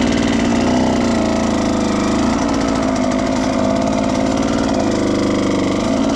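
Husqvarna TE125 125cc two-stroke dirt bike engine running at low, fairly even revs under a rider, its pitch rising and dipping slightly.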